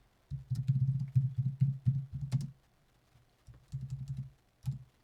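Fast typing on a computer keyboard, in two quick runs of key strikes with a short pause between them about halfway through.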